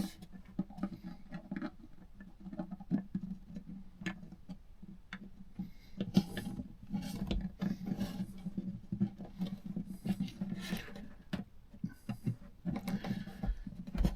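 Hands working on an acoustic guitar's wooden body: scattered small clicks, knocks and rubbing as a pickup part is glued and pressed into place. A steady low hum runs underneath.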